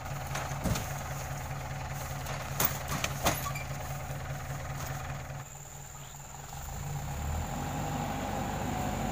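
A lorry's engine idling steadily, with three sharp knocks in the first few seconds as heavy oil palm fruit bunches are heaved with a metal pole onto the truck's bed.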